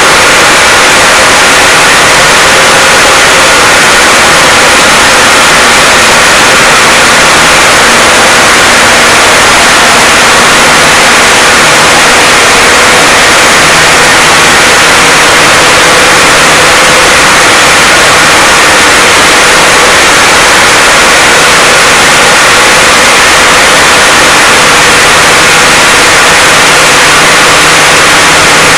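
Blastrac 365 floor milling machine running continuously while milling the surface. It makes a loud, steady, harsh noise with a faint hum underneath and no letup.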